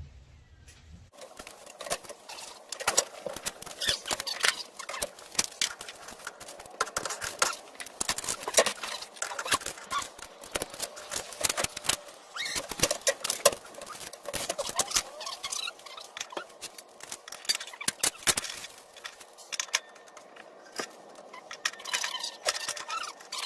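Irregular scraping and clicking from hand work on a surface: many quick scrapes and taps with short pauses between them.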